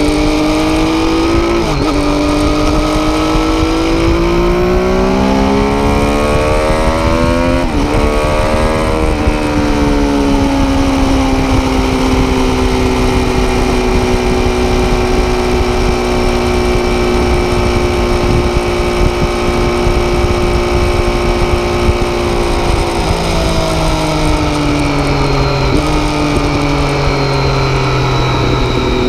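Triumph Daytona 675's inline-three engine through an Arrow exhaust, accelerating hard: the pitch climbs and drops sharply at two upshifts, then holds a high, slowly rising note at near top speed, over a steady rush of wind. Near the end the engine note falls in two steps as the bike slows.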